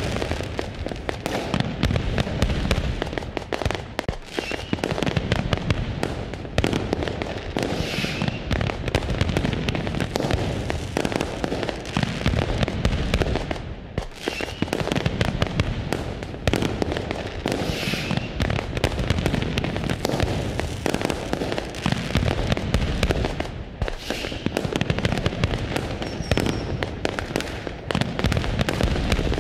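Fireworks display: aerial shells bursting one after another in dense, overlapping bangs and crackles, with no pause.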